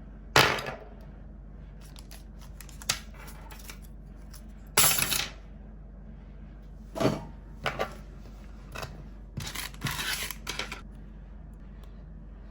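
Small repair tools and watch parts being handled on a workbench: a series of sharp clicks and short scrapes, the loudest about half a second in and at about five seconds, with a run of scraping near the end. A low steady hum runs underneath.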